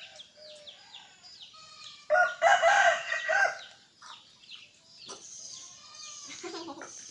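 A rooster crows once, about two seconds in, a loud call of several linked notes lasting about a second and a half, with small birds chirping throughout.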